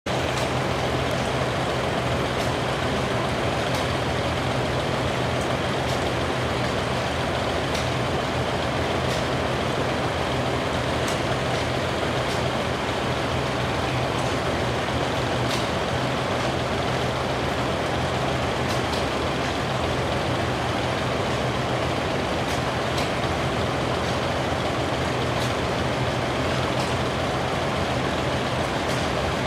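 Vintage farm tractor engines idling together in a steady low drone, with faint scattered ticks over it.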